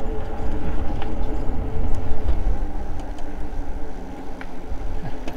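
Wind rumbling on the microphone and tyre noise from an Eahora Juliet e-bike rolling along a paved trail, with a faint steady whine underneath; the rumble eases near the end as the bike slows.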